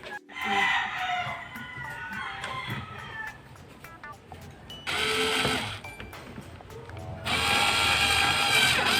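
A rooster crows once at the start. Then a power screwdriver runs in two bursts, about a second long a few seconds in and a longer one near the end, driving screws to close the cover back over the washing machine's control board.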